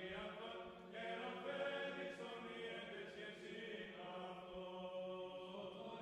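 Faint background choral chant: several voices holding long, steady notes.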